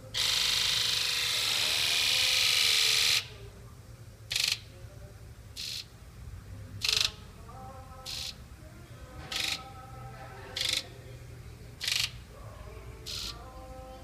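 The HEUI fuel injectors of a 7.3 Powerstroke diesel buzzing during a scan-tool injector buzz test. All eight buzz together for about three seconds, then each buzzes briefly in turn, eight short buzzes about a second and a quarter apart. The second, fourth and last buzzes are weaker: injectors 2, 4 and 8 are weak, which the mechanic takes for sticking injectors.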